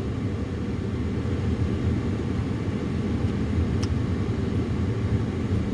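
Steady low rumble of a vehicle running, heard from inside, with a faint tick about four seconds in.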